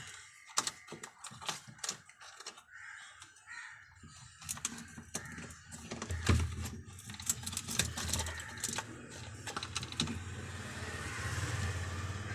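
Irregular small clicks and metallic taps of hand tools, plausibly pliers, working on a refrigerator thermostat's fitting. A low steady hum joins about a third of the way in.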